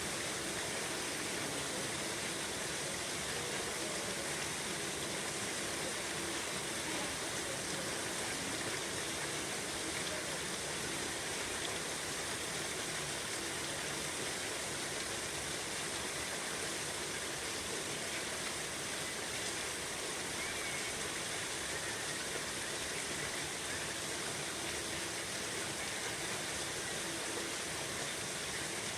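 Steady rainfall, a continuous even hiss of rain with no breaks or distinct impacts.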